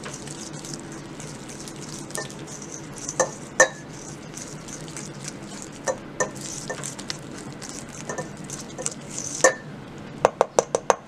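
Wire balloon whisk beating egg yolks and icing sugar in a stainless steel bowl by hand: a steady wet scraping, with sharp clinks of the wires against the bowl now and then and a quick run of clinks near the end.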